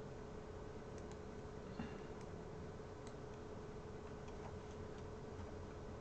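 Faint, scattered clicks of a computer mouse and keyboard being worked, the sharpest a little under two seconds in, over a steady electrical hum and hiss.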